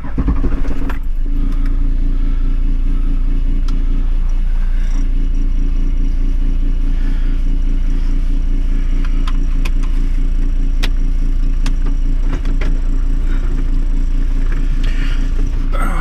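Toyota Land Cruiser 105 Series four-wheel drive's engine running at steady low revs on a rutted dirt track, with scattered light knocks and rattles.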